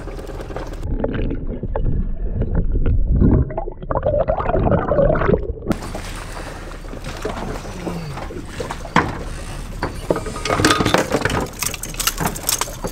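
Water sloshing and splashing at a sailboat's hull, with irregular knocks and splashes as a hooked Spanish mackerel is gaffed and hauled aboard. The sound is muffled for the first few seconds, then opens out with sharper knocks and splashes.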